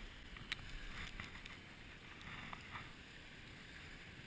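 Faint open-air ambience at the water's edge, with a few small clicks and taps about half a second in and again around the middle.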